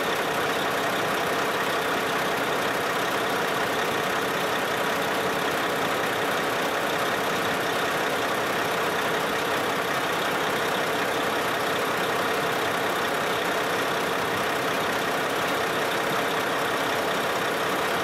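Semi truck's diesel engine idling steadily, with the air conditioning on full and its compressor engaged.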